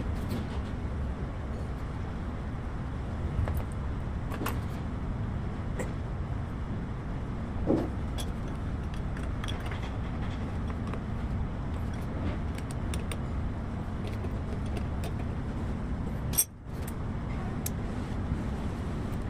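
Small metal parts clicking and clinking as lever linkage pieces are handled and fitted onto a forklift's hydraulic control valve, with a few louder knocks, over a steady low background rumble.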